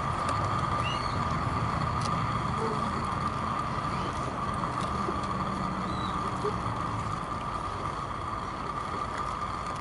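Propane burner running steadily under a saucepan: an even rushing hiss over a low rumble, with a faint steady tone in it, easing off slightly toward the end. The owner thinks the burner is running out of propane.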